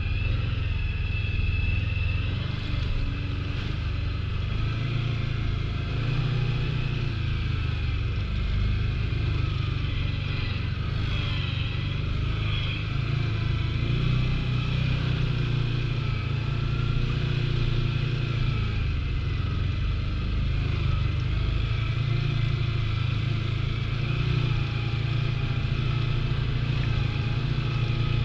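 A 1000 cc ATV engine running at a fairly steady pace while riding, its hum rising and falling gently with the throttle.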